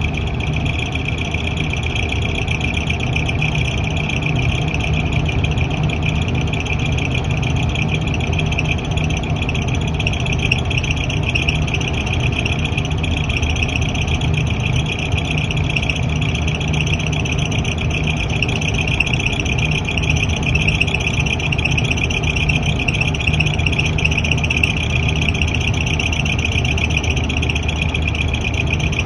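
Exhaust fan running with an abnormal noise: a steady low hum with a harsh, high-pitched rattling noise over it, unchanging throughout.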